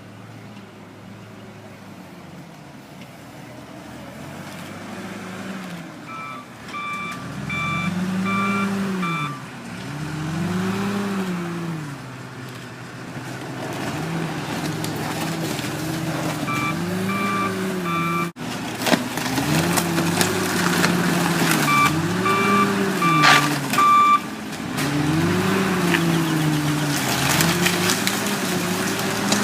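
Heavy diesel equipment working, its engine revving up and down every couple of seconds, with a reversing beeper sounding in several short runs. Sharp knocks and clatter come in the second half.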